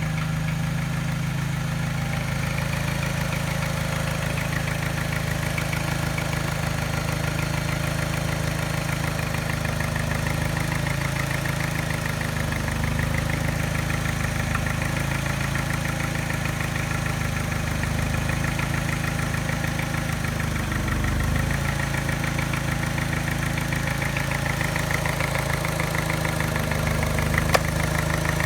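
Mini engine idling with a mild, rhythmic tap and a very slight miss that makes it run a little rough. The tap has not been cured by a new timing chain, tensioner and piston rings. One sharp click is heard near the end.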